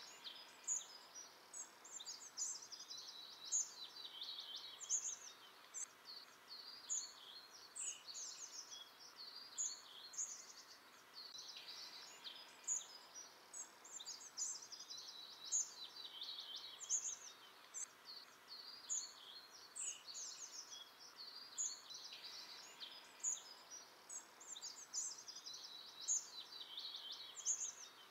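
Several songbirds singing at once: a continuous chorus of short high-pitched phrases and trills overlapping, over a faint steady hiss.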